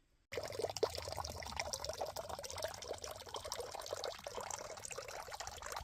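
Water of a mountain stream running steadily, a busy splashing full of small drips and trickles that starts suddenly just after the start.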